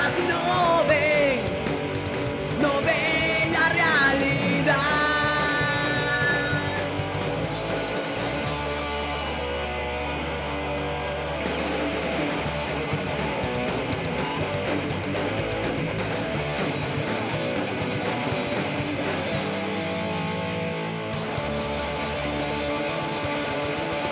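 Melodic punk rock song: electric guitars with a sung vocal line in the first few seconds, then the band playing on without vocals.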